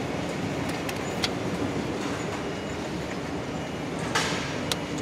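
Steady machinery drone with a low hum, with a few sharp metal clicks from the hydraulic torque wrench being fitted on the dump truck's wheel nut, and a short hiss about four seconds in.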